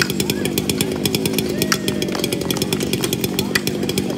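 Chainsaws running steadily, with voices talking.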